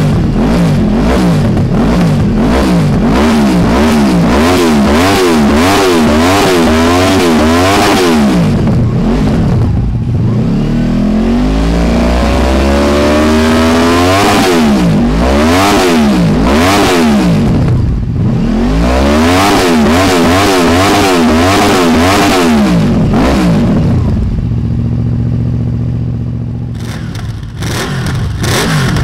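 2014 Honda VFR800F's V4 engine through a GPR slip-on silencer in racing set-up, revved in quick repeated blips while standing. About ten seconds in comes one slower, longer climb to high revs. Near the end it settles to a steady idle.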